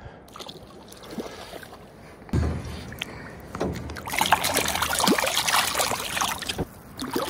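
Knocks and bumps in a small fishing boat, with a low thump a couple of seconds in, then about two and a half seconds of water splashing while a hooked trout is fought.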